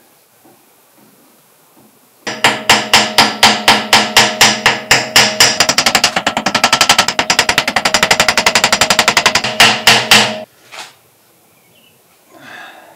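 Rapid metal-on-metal hammering, about five to eight blows a second quickening as it goes, with a ringing tone under the blows, for about eight seconds before it stops abruptly.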